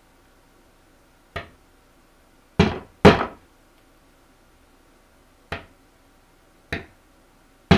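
Hammer driving 2-inch finishing nails through a stretched beaver hide into a plywood board: six separate sharp blows with quiet between, the two a little under three seconds in and one at the very end hit hardest.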